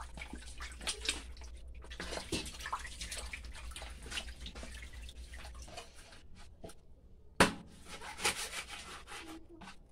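Water sloshing and splashing as hands wash a whole raw chicken in a plastic basin. About seven seconds in, a cleaver chops down onto a bamboo cutting board with one loud, sharp knock, followed by a lighter one.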